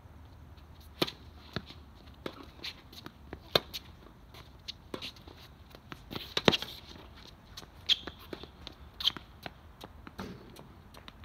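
Tennis rally: a tennis ball struck by rackets and bouncing on the court, with sharp knocks at an irregular pace and the hardest strokes a few seconds apart. There is a brief high squeak or two near the end, and a cluster of hits a little past the middle is the loudest.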